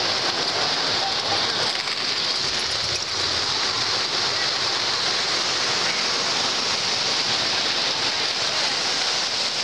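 O gauge model trains rolling on three-rail metal track, a steady rolling din, over the murmur of a crowded hall.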